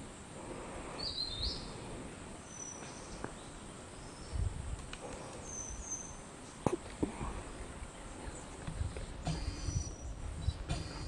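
Birds calling in mountain forest: a few brief, high, thin notes scattered through, over a steady high-pitched hum, with low rumbling near the end.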